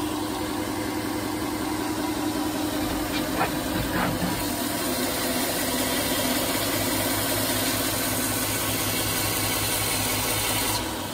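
Bench belt grinder running with a wooden knife-handle scale held against its belt, being sanded down to shape: a steady motor hum under belt hiss that grows brighter about four seconds in and eases off near the end.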